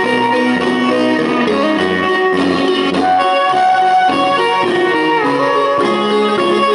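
Marimba band playing an upbeat tune, many notes at once over a steady bass line, with no pause.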